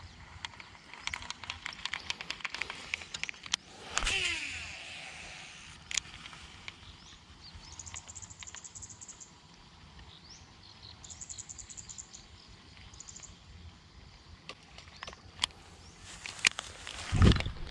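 Casting and working a surface frog lure: scattered reel and line clicks, a baitcasting reel's spool whirring with falling pitch on a cast about four seconds in, and short high insect trills. A loud low thump near the end.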